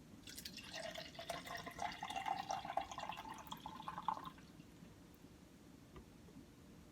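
Orange juice poured from a bottle into a cup for about four seconds. Its pitch rises as the cup fills, and it stops abruptly.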